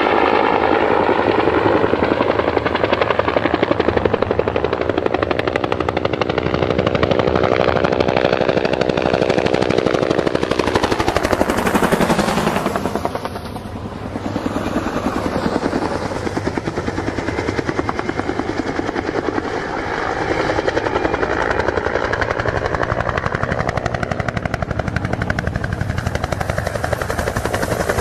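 Helicopter rotor sound effect: a fast, steady blade chop. About halfway through the pitch sweeps down and the level briefly dips before the chop carries on.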